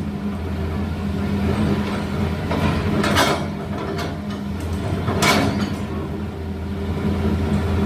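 Excavator's diesel engine running steadily, with two louder bursts of noise about three and five seconds in as the machine works at breaking up the road surface.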